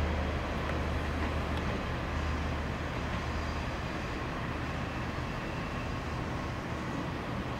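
JR Kyushu KiHa 47-series diesel railcar pulling away. Its engine's low drone fades after a few seconds as the train draws off, over a steady running noise.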